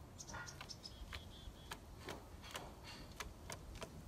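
Faint, irregular sharp clicks from a squirrel, about two to three a second, with a few short high chirps in the first second and a half.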